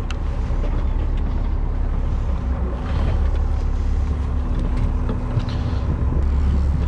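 A charter fishing boat's engine running steadily: a low rumble with a constant hum over it.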